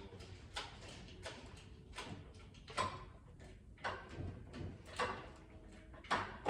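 A string of irregular clicks and knocks, roughly one a second, the loudest near the end, from hands-on work on an engine hoist, chain and jack.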